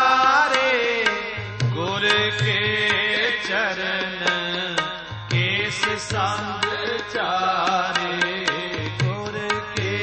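Sikh shabad kirtan music: a sung or played melody over tabla, its strokes keeping a steady beat, with deep thuds from the bass drum.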